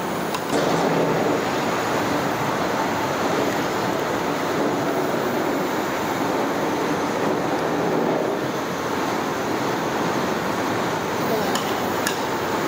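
Okra deep-frying in a large kadai of hot oil: a steady, dense sizzle that gets louder about half a second in, with a couple of light clicks near the end.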